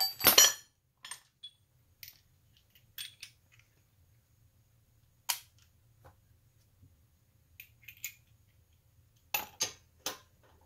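Socket wrench and lug nuts clinking against a car's alloy wheel as the wheel is fastened back on: a loud ringing metal clank at the start, then scattered sharp metallic clicks, with a quick run of them near the end.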